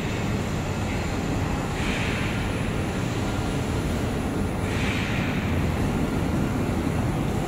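Steady mechanical rumble of a heavy-duty tube laser cutting machine running in a workshop, with two short hissing surges, about two seconds and five seconds in.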